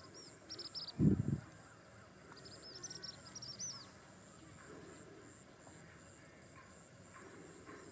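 Birds chirping in quick series of short high notes over faint outdoor ambience, with a brief low muffled thud about a second in that is the loudest sound.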